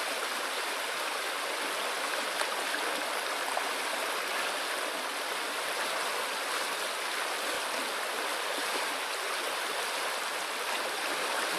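River water rushing over stones, a steady, even flow.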